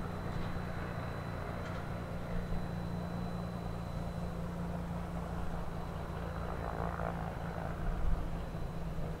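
A Piper Turbo Arrow IV's turbocharged six-cylinder piston engine and propeller running steadily, an even drone with a steady low tone.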